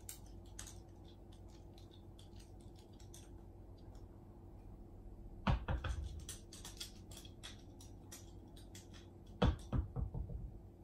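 Shiba Inu's claws ticking on a hardwood floor as it walks about, faint and scattered. There are two short runs of louder knocks, one about five and a half seconds in and one near the end.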